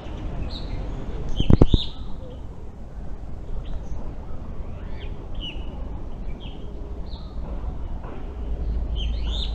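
Aviary birds calling: many short, sweeping chirps and tweets from several birds over a steady background hum. A sharp double knock about a second and a half in is the loudest sound.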